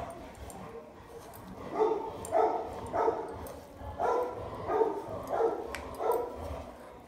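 A dog barking in a steady series of about seven short barks, roughly one every half second, starting about two seconds in.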